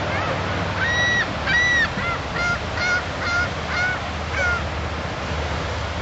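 A gull calling: two longer yelping notes about a second in, then a quicker run of about six shorter ones, over the steady wash of surf.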